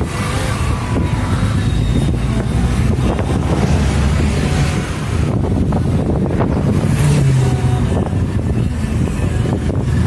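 Moving car: steady road and engine rumble with wind buffeting the microphone.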